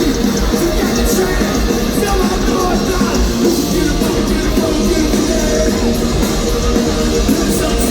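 Live punk rock band playing loud and steady, with shouted vocals over the band.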